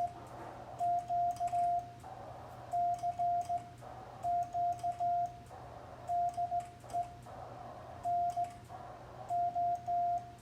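Morse code (CW) tone from an amateur radio transceiver, one steady pitch keyed by hand in long and short marks, spelling out CQ three times (dah-dit-dah-dit, dah-dah-dit-dah). Faint clicks come with the keying, and a low hum runs under it.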